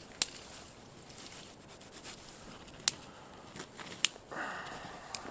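Campfire wood popping: four sharp, isolated pops spread over a few seconds, with a brief rustle of handling about four seconds in.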